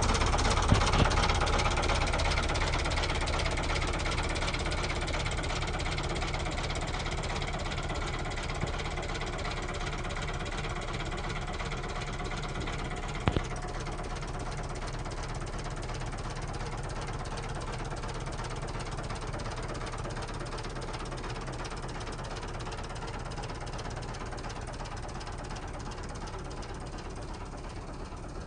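Fiat 480 tractor's three-cylinder diesel engine idling steadily with an even clatter, growing gradually fainter. A short sharp click about thirteen seconds in.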